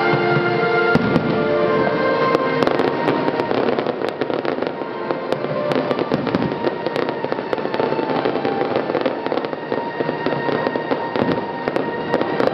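Aerial fireworks bursting and crackling, with many sharp pops that grow denser after about three seconds, over music with held notes.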